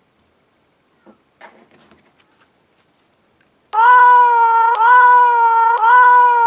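Cat meow sound played from a phone's speaker by a cat-translator app: one recorded call repeated three times back to back, each about a second long and held at a steady pitch after a short rise. It starts about a third of the way in, after a few faint clicks.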